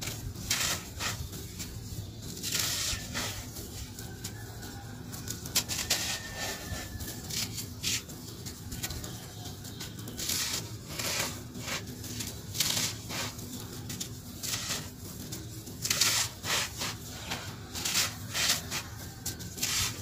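Dry cement lumps crumbled and crushed between bare hands, with irregular gritty crunches and dry powder trickling out of the fingers onto a heap of loose cement.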